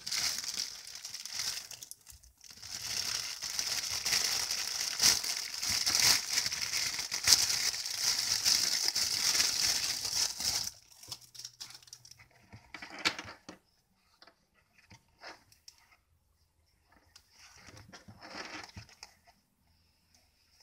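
Thin clear plastic bag crinkling and rustling loudly and continuously as it is handled and opened, for about ten seconds. It then drops to scattered quieter rustles and light clicks as the gloves are taken out and handled.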